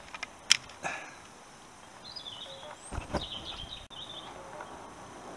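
Sparse handling noise from plastic wiring connectors and the headlamp shell of a motorcycle being worked by hand: a sharp click about half a second in, a few lighter ticks, and a dull knock about three seconds in. A bird chirps faintly in the background.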